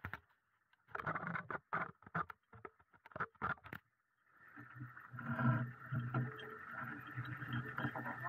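Water splashing and sloshing around a person wading thigh-deep beside a submerged pickup, in short irregular bursts over the first few seconds. After a brief pause a steadier low drone sets in, with more splashing over it.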